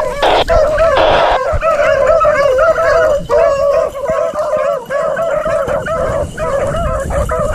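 A pack of beagles baying together, overlapping howls that waver up and down in pitch and go on without a break: the hounds giving voice as they run a rabbit's scent trail.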